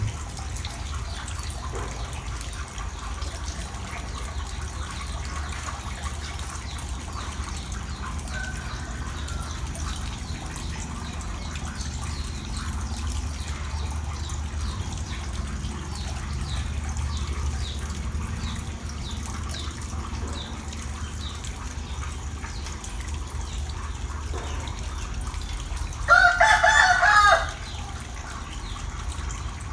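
A rooster crows once, loudly, near the end, over a steady low hum and faint trickling water.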